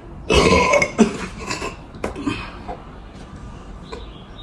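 A person's loud throaty outburst about a third of a second in, lasting about half a second, followed by a few softer short breathy sounds.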